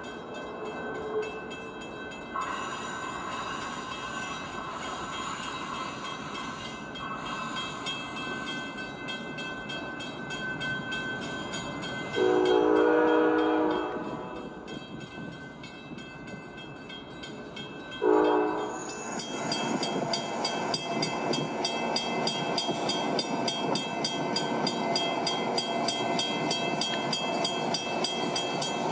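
Motorised LEGO trains running on plastic track, with a steady whir and rattle of motors and wheels. A train horn sounds twice: a long blast about twelve seconds in and a short one about six seconds later. After that the running becomes a louder, rhythmic clicking of wheels over track joints.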